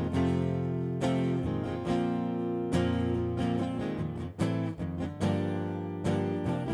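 Steel-string acoustic guitar, capoed at the first fret, strumming chords that ring between sharp strokes coming about every second.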